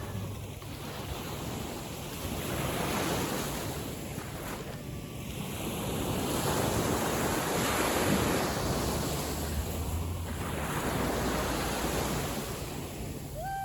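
Small sea waves breaking and washing up the shore on a calm sea, the wash swelling and easing every few seconds, with wind rumbling on the microphone.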